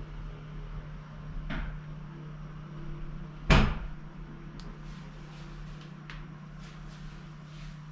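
A door knocking shut about three and a half seconds in, with a softer knock about a second and a half in and several light clicks after it. A steady low hum runs underneath.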